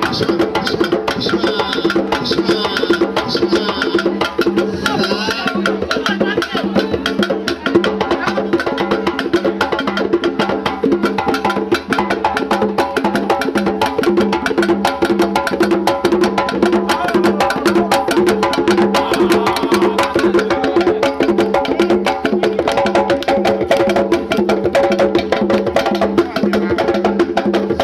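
Music driven by fast, steady percussion: dense sharp clicks and strikes over sustained pitched tones.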